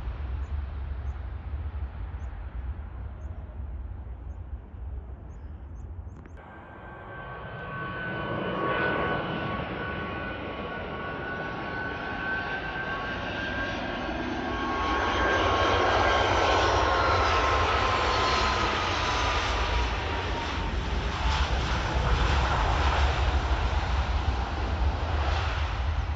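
Jet airliner passing close by, its engine noise building to a peak a little over halfway through while a high engine whine holds steady, then drops in pitch as the aircraft goes past. A steady low rumble runs underneath.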